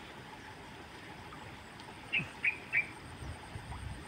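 A bird chirping three short, quick notes a little past two seconds in, over a faint outdoor background with a thin, steady, high pulsing tone.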